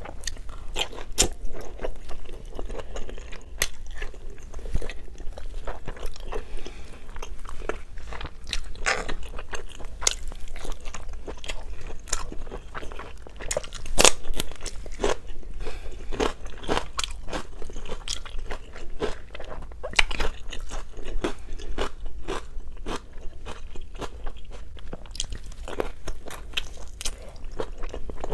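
Close-miked eating: steady chewing with wet mouth clicks, smacks and crunches. A loud crunch comes about 14 seconds in as a raw green vegetable stick is bitten.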